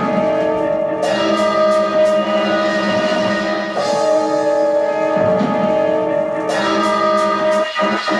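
Drum and bass track playing from a 12-inch acetate dubplate: held chords with light percussion hits over them.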